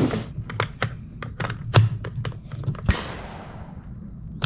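Quick clicks and knocks as an AR-style rifle is handled at a shooting bench. About three seconds in comes a louder crack with about a second of echo, typical of a gunshot on the range, and another sharp crack follows near the end.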